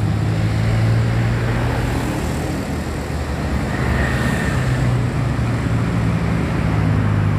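Large bus's diesel engine running close by with a steady low drone, amid traffic noise; the sound dips slightly about three seconds in.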